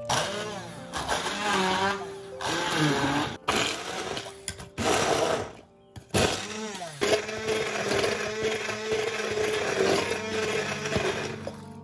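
Stainless-steel immersion blender pureeing chopped fresh tomatoes in a glass bowl. It runs in several short pulses with brief stops, then stays on for about five seconds. The motor's pitch sags and rises as the blade meets the chunks.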